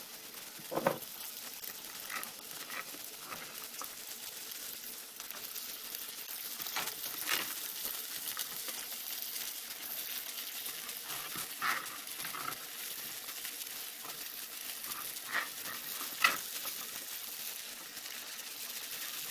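An onion and spice mixture sizzles in a frying pan as cut okra is added to it by hand, with scattered knocks and clatters of pieces landing in the pan.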